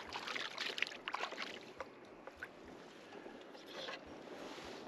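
Water lapping and splashing against a kayak hull, with a few light knocks and rattles in the first second or so as gear on the boat is handled.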